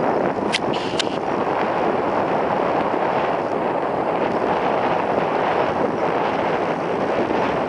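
Steady wind rushing over the microphone, mixed with the distant outboard motor of a Skeeter ZX190 bass boat running at speed across the water. Two sharp clicks come in the first second.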